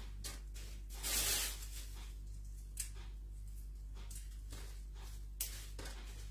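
Thin plastic bag rustling and crinkling in a series of short rustles as chili leaves are handled and dropped into it, the loudest about a second in, over a steady low hum.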